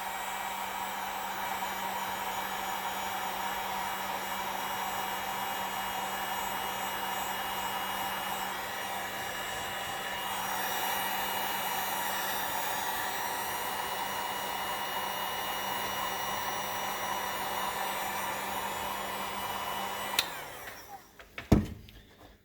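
A small electric blower motor running steadily, an airy rush over a constant low hum, that winds down and stops near the end, followed by a single knock.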